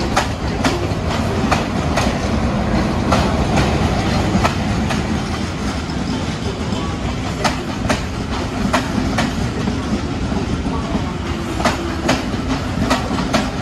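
MÁV-START passenger coaches rolling slowly past on the track, with a steady low rumble. Their wheels clack over the rail joints roughly twice a second.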